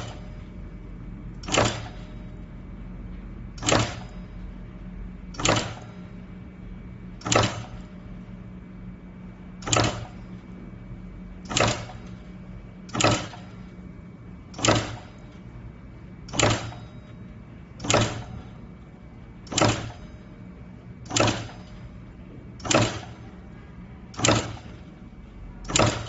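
Semi-automatic terminal crimping machine cycling repeatedly, one sharp clunk of the crimping press about every one and a half to two seconds as each wire end gets a female spade terminal crimped on. A steady low machine hum runs underneath.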